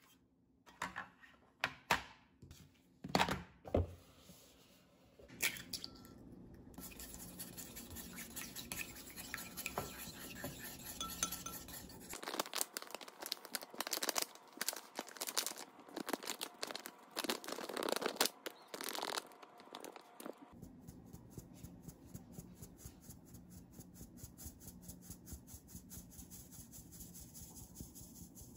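Dry baking prep by hand: a plastic packet of chocolate cake mix crinkling and clicking as it is handled, the powder poured into a ceramic bowl, then a metal mesh sieve shaken over the bowl with a rapid, even ticking near the end.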